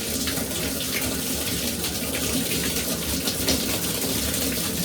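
Shower running on the hot tap, water splashing steadily into the shower pan.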